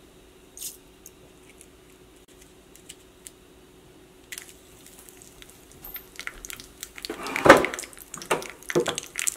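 Mustard seeds spluttering and popping in hot oil in a small tempering pan, part of a tadka. The crackling starts about four seconds in and grows denser. A loud sizzle comes about a second and a half before the end as dried red chillies go into the oil.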